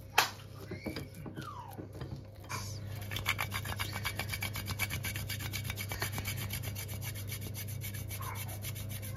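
Chocolate bar rasped against a metal hand grater in quick, even strokes, about six a second, starting about two and a half seconds in. Before that, a few clicks of a fork against a glass mixing bowl.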